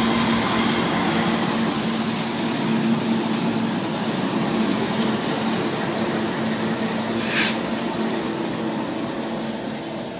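CSX freight train's diesel-electric locomotives passing close by at speed: a steady rushing noise with a low hum. There is one short hiss about seven seconds in, and the noise fades a little near the end.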